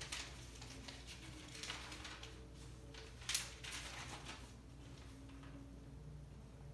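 Sheets of paper rustling as pages of notes are handled and turned, in several short bursts, the loudest about three seconds in, over a low steady room hum.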